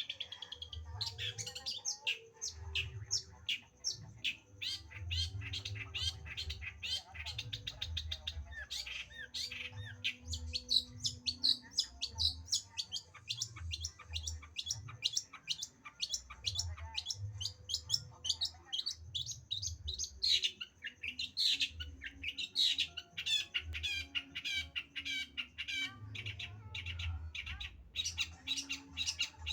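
Long-tailed shrike (cendet) singing: a rapid, unbroken stream of short, varied chirping and squawking notes, with a low uneven rumble underneath.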